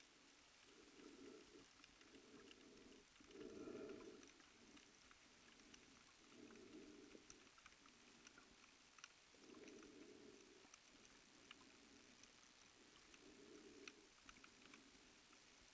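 Near silence: faint underwater ambience, with soft, low, muffled rushing swells that come and go every second or two, the loudest about four seconds in, and scattered tiny clicks.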